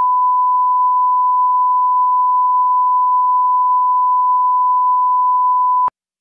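A steady 1 kHz reference test tone: one pure, unwavering beep held for about six seconds, then cut off suddenly near the end. This is a line-up tone of the kind placed ahead of a programme on a broadcast tape.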